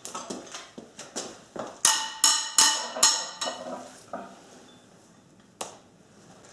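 Hand tools clinking metal on metal at the Torx head bolts of a Datsun L24 cylinder head as the bolts are worked loose. Light clicks lead into four sharp ringing clinks about half a second apart around two seconds in, with one more click near the end.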